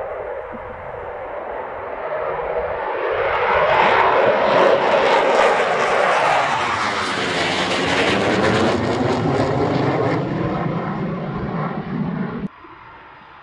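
Eurofighter Typhoon fighter jet's twin turbofan engines passing low overhead: the jet noise swells quickly, is loudest as the aircraft goes over, with a sweeping, phasing rush as it passes, then cuts off suddenly near the end.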